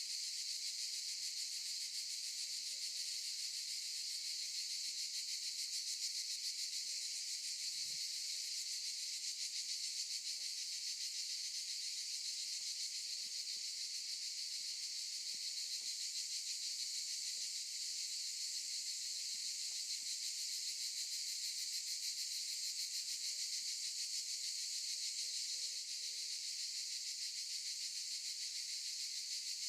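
Cicadas in chorus: a steady, high-pitched, unbroken buzz.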